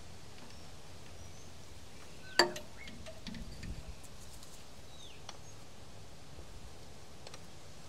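Quiet outdoor background with one sharp metallic clink about two and a half seconds in, then a few faint clicks and rattles, likely from handling tools and the battery at the terminals. Faint bird chirps sound now and then.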